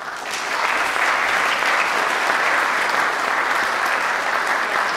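Audience applauding: the clapping builds up quickly and then holds steady.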